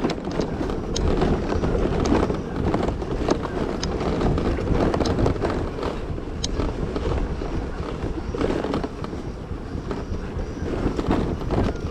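Scooter riding down a rough dirt road: wind buffeting the bike-mounted camera's microphone over the engine and tyre noise, with frequent short knocks and rattles from the bumps.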